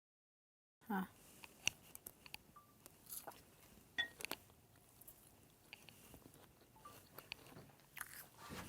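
Someone chewing a mouthful of crunchy raw vegetable salad: faint, irregular crisp crunches and clicks, starting about a second in after a moment of dead silence.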